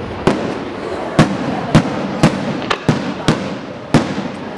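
Aerial firework shells bursting in a display: a run of sharp bangs, roughly two a second at uneven spacing, over a steady background din.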